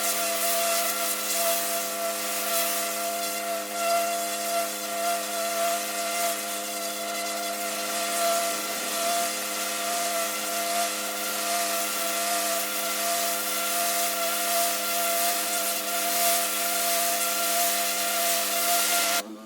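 Pressure washer spraying: a high-pressure water jet hissing hard against brick paving over the steady hum of the machine's motor and pump. Near the end the spray cuts off suddenly as the trigger is released, leaving only the steady hum.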